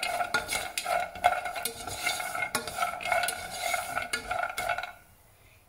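Whole almonds being stirred with a spatula in a pot as they roast in a little desi ghee: quick clicks and scrapes of nuts and spatula against the pan, stopping suddenly about five seconds in.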